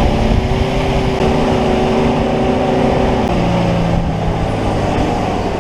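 Van engine and road noise, heard from inside the vehicle while driving. The engine's pitch shifts about three seconds in.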